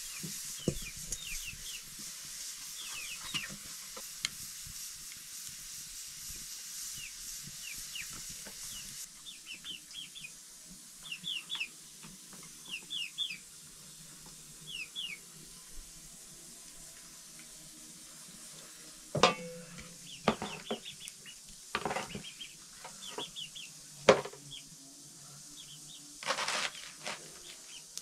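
A faint steady hiss fades out about a third of the way in, while small birds chirp in short high rising peeps, two or three at a time. From about two-thirds in come sharp knocks and clatter of a cabbage being handled in an aluminium basin. Near the end, crisp crunching strokes of a kitchen knife cut through the raw cabbage.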